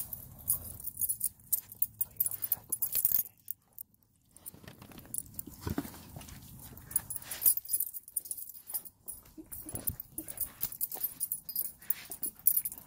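Siberian husky up close at a reunion, giving a couple of brief whimpers amid many short clicks and rustles from being petted and nosing at the microphone.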